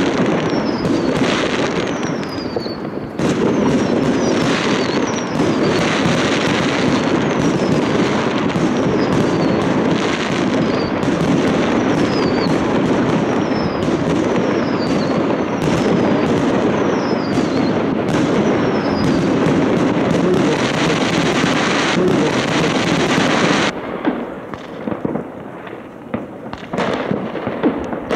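A dense, continuous barrage of fireworks: many bursts crackling and banging on top of one another, with a string of short falling whistles through the first half. About three-quarters of the way through the barrage stops suddenly, leaving scattered pops and bangs.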